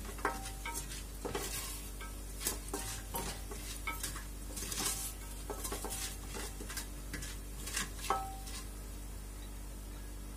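Wooden spoon stirring whole spices and cumin frying in hot oil in an aluminium pressure cooker: irregular scrapes and knocks against the metal, a few ringing briefly, over a light sizzle. The knocking stops near the end.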